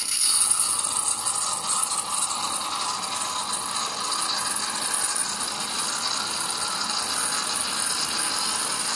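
Cecotec Matic-Ccino 7000 coffee machine frothing milk: a steady hiss of steam from its thermoblock foaming milk drawn from the milk jug and dispensing it into the cup.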